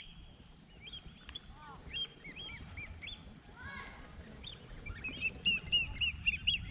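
A flock of pied oystercatchers calling: many short, high piping calls overlapping, getting busier about five seconds in, over a low rumble.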